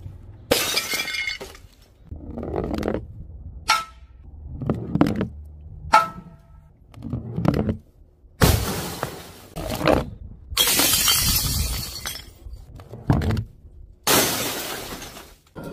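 A run of glass smashes: heavy balls dropped from a height shatter a mirror and the glass screen of a CRT television. There are about a dozen crashes in all, some of them long crackling smashes with the shards settling, and a few short ringing clinks of glass.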